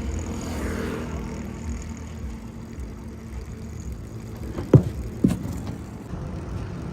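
Tractor diesel engine idling with a steady low rumble. About five seconds in there are two short, sharp sounds that drop in pitch, half a second apart.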